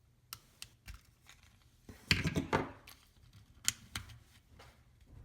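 Plastic holster of a desoldering-braid dispenser being worked apart by hand: scattered clicks, a burst of scraping and clatter about two seconds in, and a sharp click a little before four seconds.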